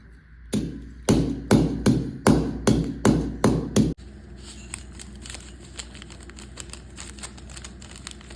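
Pestle pounding ajwain seeds in a mortar: about nine heavy strikes, two or three a second, each ringing briefly, stopping abruptly about four seconds in. Faint light ticking follows.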